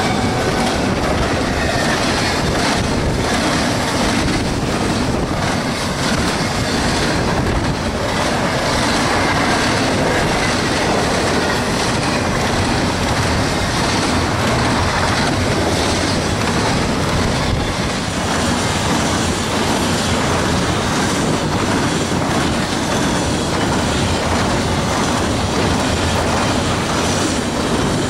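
Freight train of double-stack container well cars rolling past at speed: a steady rumble and clatter of steel wheels over the rail, with faint wheel squeal. The locomotive horn's last falling note trails off in the first second.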